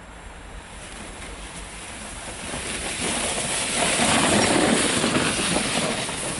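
A small board hissing as it slides over packed snow. It gets louder as it comes near, is loudest around four to five seconds in as it passes, then fades.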